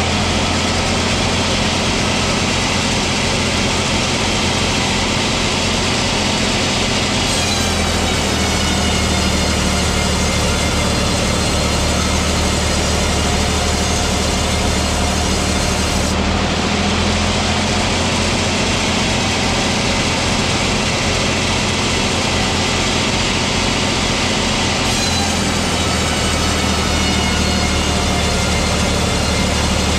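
Sawmill machinery running steadily: a low engine drone, with a high, slightly falling saw whine that comes in for several seconds and drops away, repeating about every nine seconds as the saw works through the wood.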